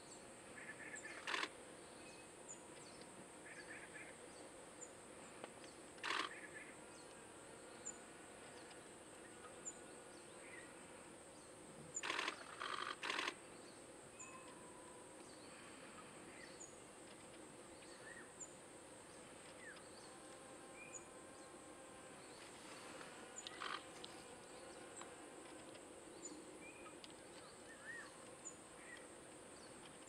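Faint outdoor ambience: a steady high-pitched insect drone with small bird chirps repeating over it, broken by a few short sharp clicks, including a quick cluster of three about twelve seconds in.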